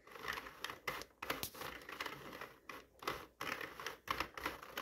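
Sentro circular knitting machine being cranked slowly. Its plastic needle hooks click and clatter in an uneven run as they rise and fall around the ring and catch the yarn.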